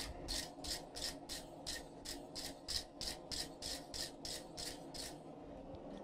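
Wire brush scrubbed back and forth over a hot forge-welded steel bar on the anvil, about three strokes a second, stopping about five seconds in: brushing scale and flux off the fresh weld to inspect it.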